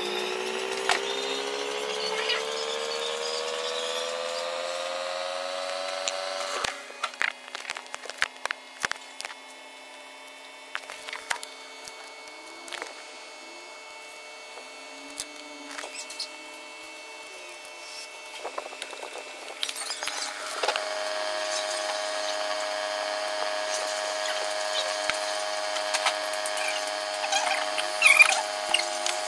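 A motor hum whose whine rises slowly in pitch, then cuts off sharply about six seconds in, and returns as a steady hum near twenty seconds in. Over it come irregular clicks and taps of pliers, tubing and small plastic printhead parts being handled.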